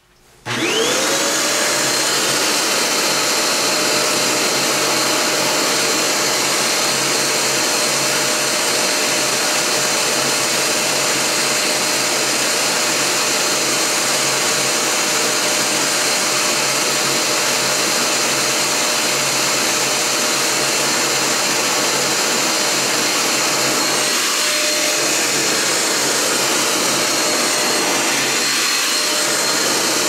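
Housmile handheld UV-C vacuum cleaner switched on: its motor spins up with a rising whine within the first second, then runs steadily with a high whine over a loud, even rush of air.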